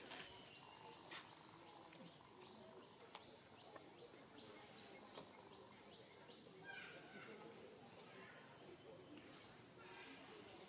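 Faint, steady high-pitched insect chorus, with a few light ticks and faint short chirps now and then.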